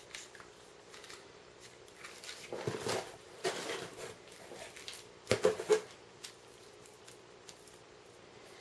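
Handling noise from unpacking a car stereo kit: a cardboard box, bagged parts and cable harnesses rustling and knocking in irregular bursts, loudest in a few sharp clatters just past halfway.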